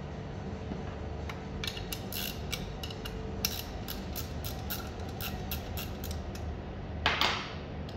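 Chrome group head of a La Pavoni Professional lever espresso machine being unscrewed by hand: a run of small metal clicks and creaks as the threads turn, with a louder scrape near the end.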